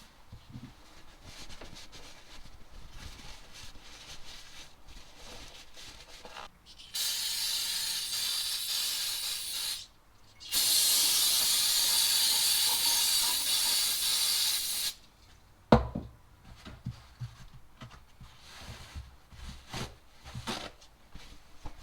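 Aerosol cleaner sprayed from a can in two long hissing bursts, about three seconds and then about four and a half seconds, followed by one sharp knock.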